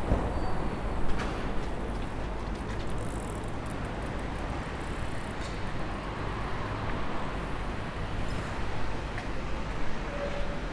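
City street ambience: a steady hum of distant traffic with a few faint scattered clicks.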